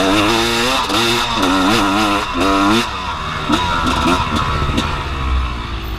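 Gas Gas EC 250 single-cylinder two-stroke dirt bike engine revving hard in repeated rising and falling bursts, about two a second, as it climbs a hill, then dropping to low revs about three seconds in.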